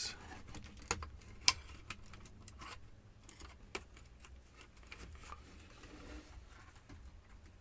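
Scattered small clicks and knocks of a laptop's plastic case being handled and pried at, the sharpest about a second and a half in.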